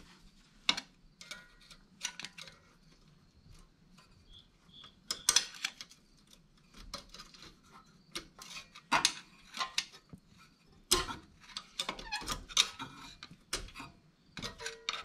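Steel screwdrivers clicking and scraping against a small engine's valve spring and retainer as the spring is pried down and the retainer lined up without a spring compressor. The clicks and scrapes are irregular, in louder clusters about five, nine and twelve seconds in.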